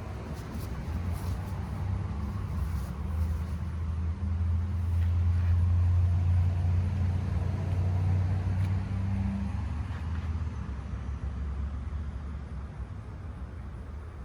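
A motor vehicle's engine passing by: a low hum that swells, is loudest about six seconds in, then fades away.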